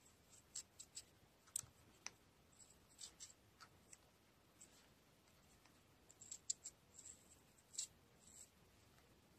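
Faint, irregular crisp clicks and scrapes of a small carving knife cutting and shaving raw carrot while petals of a carrot rose are shaped.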